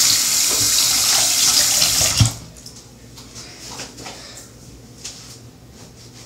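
Bathroom sink tap running as hands are rinsed under it, then turned off abruptly with a short knock a little over two seconds in. A few faint knocks follow.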